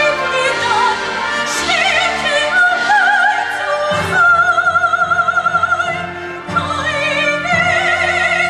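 A soprano sings a slow, sustained melody with wide vibrato over a theatre orchestra, holding one long note about halfway through.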